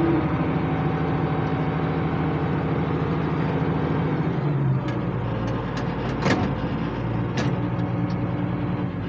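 International 886 tractor's diesel engine running steadily. About four to five seconds in its note shifts, and later there are two sharp clicks about a second apart.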